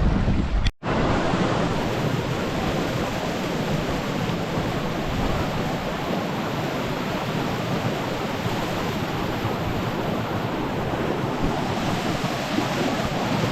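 Blacksmith's Fork River in spring-runoff flood, its rushing water making a loud, steady roar. There is a brief gap less than a second in.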